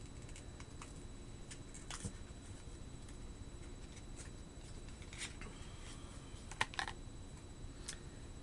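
A few scattered light clicks and taps over faint room noise, the sharpest one about six and a half seconds in.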